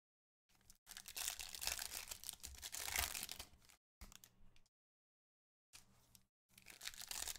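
Crinkling and rustling of baseball card packs and cards being handled, wrapper and card stock rubbing as cards are slid and flipped through. The loudest stretch runs from about one to four seconds in, then comes shorter scraps of rustling with dead gaps between.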